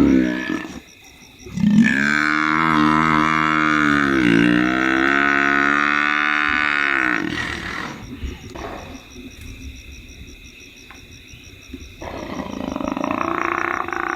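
African buffalo bull bellowing in distress while lions attack it. A long, drawn-out call starts about two seconds in and lasts about five seconds. Another loud call starts near the end.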